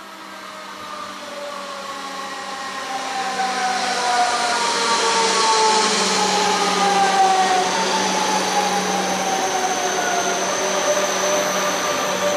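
A red DB Regio electric multiple unit of the class 425 family pulls in past the camera. Its traction drive whines in several tones that fall steadily as it slows, over wheel-on-rail rumble. It grows louder over the first few seconds as the train comes close.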